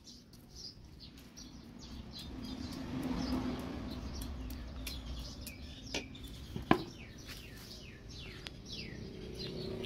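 Small birds chirping repeatedly in short falling notes. Partway through, a metal spoon clinks twice against an aluminium cooking pot as it is set down, over a low rumble that swells and fades.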